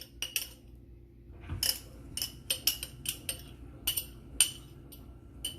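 A metal utensil clinking and scraping against the inside of a glass jar of taco sauce as sauce is scooped out. A dozen or so irregular, ringing taps, with a pause of about a second near the start.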